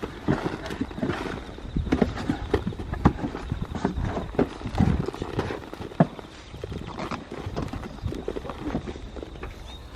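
Hands pulling apart a Japanese valerian root clump: irregular snaps, crackles and soft knocks as roots tear and soil crumbles.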